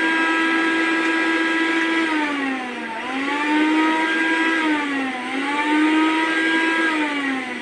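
A Philips 750 W mixer grinder's motor runs with a steady whine while grinding whole ginger in its steel jar. Twice, about three and five seconds in, the pitch sags and climbs back as the pulse knob is worked, and near the end the motor winds down.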